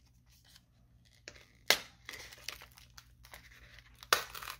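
Magic: The Gathering Core Set 2021 booster pack packaging being torn open by hand: crinkling wrapper with a few sharp rips, the loudest at about one and a half seconds in and near the end.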